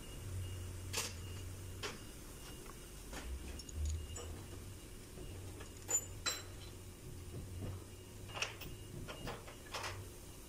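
Scattered light metallic clicks and knocks of a pickup's front brake caliper and pads being handled and fitted by hand, over a faint low hum.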